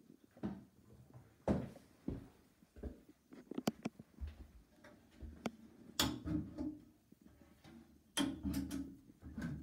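Irregular knocks, clicks and handling noise in a small tiled bathroom, with louder clattering about six seconds in and again from about eight seconds in, as a hand handles a frosted glass panel.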